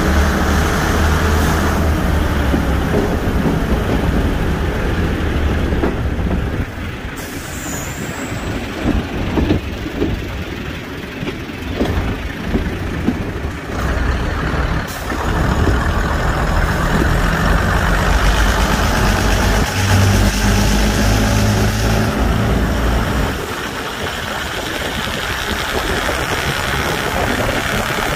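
Diesel multiple unit's diesel engines running with a steady low throb. The sound eases off for several seconds in the middle, then returns louder.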